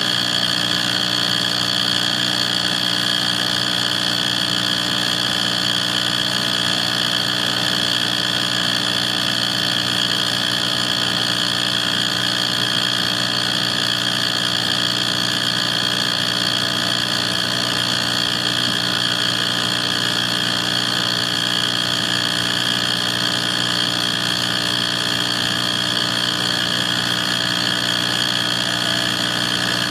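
Wall furnace running with a steady high-pitched whine over a low hum, unchanging throughout; the owner does not know its cause.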